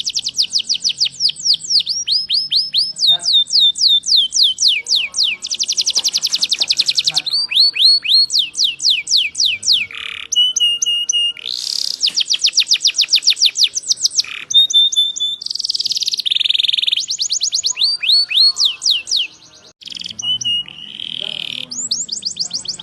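Domestic canary singing in rapid trills of repeated, high, downward-sweeping notes, switching to a new trill type every second or two, with a brief break about nineteen seconds in.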